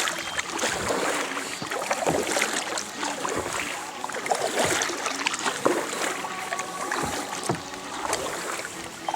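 Canoe paddles dipping and pulling through the water, with splashing and dripping in an uneven rhythm of strokes about once a second.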